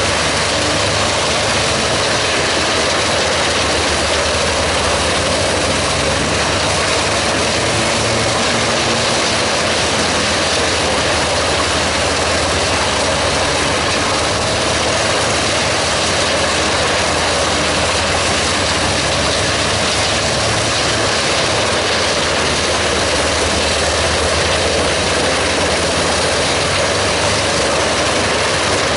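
Truck-mounted Giant wood chipper running under load, chipping logs and blowing the chips out of its discharge spout. Its engine and chipping noise are loud and steady throughout.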